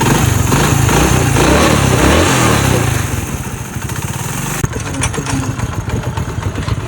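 Motorcycle engine running steadily with a newly fitted timing chain kit and new timing-chain guide rubbers, the repair meant to cure a loud timing-chain rattle caused by worn guide rubbers. It drops a little in loudness about three seconds in.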